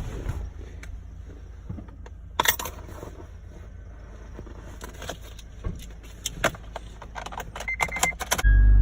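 Keys jangling and light clicks, then two short electronic tones, and near the end the Acura TL Type-S's engine starts with a sudden loud, steady low rumble.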